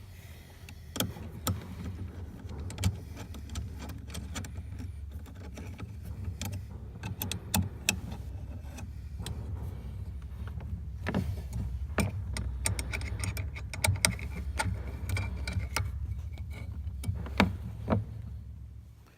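A steady low motor rumble with frequent clicks and rattles over it, cutting off abruptly at the end.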